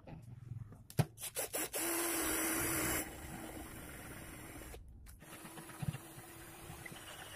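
Electric motor of a homemade router machine running with a steady hum and hiss; a few sharp clicks about a second in, then a louder stretch of about a second before the sound drops to a lower, steady level.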